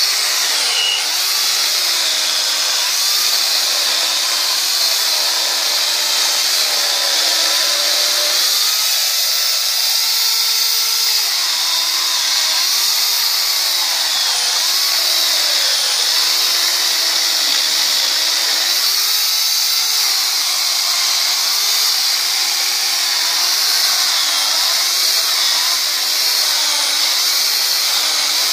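INTERTOOL DT 2204 electric chainsaw running steadily while cutting through a log, its motor pitch wavering up and down as the chain works through the wood.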